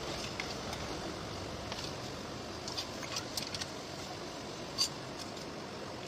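Light clicks and taps of a plastic Bluetooth speaker's casing and parts being handled, with a cluster of them a little past the middle and one sharper click near the end, over steady background noise.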